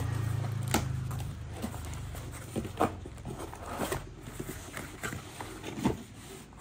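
Corrugated cardboard box being pulled open and pressed flat by hand: irregular knocks, scrapes and rustles of stiff cardboard, with a few sharper thumps.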